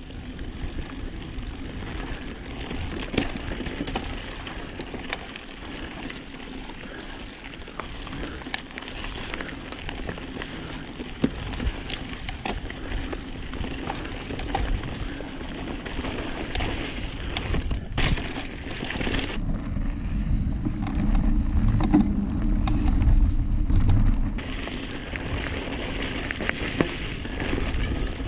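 Mountain bike rolling down a rough dirt singletrack: steady tyre noise on dirt, with frequent clicks and rattles from the bike over the rough ground. For about five seconds past the middle the sound turns muffled under a low wind rumble on the microphone.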